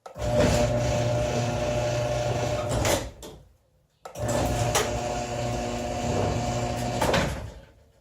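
An electric motor runs twice for about three seconds each, with a steady low hum, starting abruptly and ending with a sharp click before it winds down.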